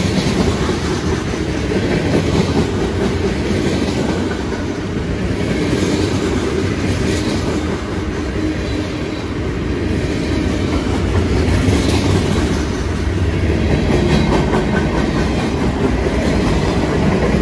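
Freight cars of a long mixed freight train rolling past close by: a steady rumble of steel wheels on rail, with clickety-clack as each truck passes over the rail joints.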